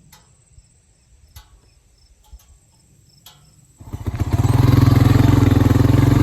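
Crickets and other insects chirping steadily and faintly. About four seconds in, an ATV engine comes in abruptly and loudly and then runs steadily as the ATV pulls a roller crimper over standing buckwheat.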